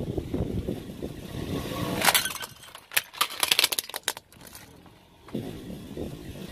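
Hard plastic toy cracking and crunching under a rolling car tyre: a loud crack about two seconds in, then a quick run of sharp snaps a second later. A low rumble from the car runs under it before and after.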